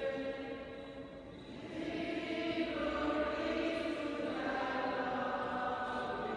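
Slow sung chant with long held notes; the pitch moves to a new note about a second and a half in and again near three seconds.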